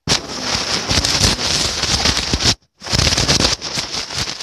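Loud rushing, rumbling noise on a phone microphone in two long bursts with a brief break about two and a half seconds in, like air blowing across the microphone.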